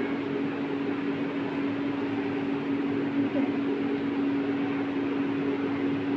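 A steady machine hum at one pitch over an even hiss.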